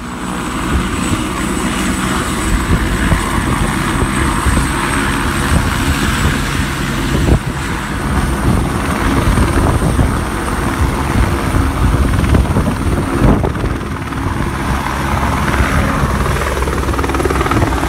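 A loud, steady mechanical drone, like an engine or rotor running, with a thin high whine over it.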